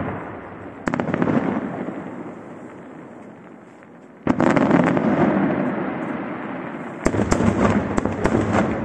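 Aerial firework shells bursting overhead. There are three sudden bangs about one, four and seven seconds in, the one at four seconds the loudest, and each leaves a rumble that slowly fades. Over the last two seconds a run of sharp reports follows in quick succession.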